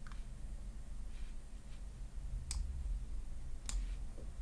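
Computer mouse clicking: a few sharp single clicks, a second or more apart, over a low steady hum.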